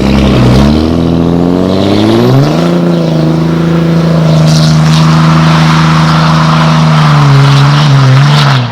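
Dodge Ram's Cummins 5.9 L inline-six turbo diesel running loud through its exhaust, rising in pitch over the first two seconds or so, held steady, then dropping back near the end.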